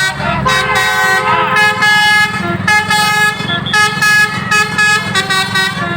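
Bus's 'telolet basuri' multi-tone air horn playing a tune in a run of short blasts that change pitch, over the steady running of the bus engine.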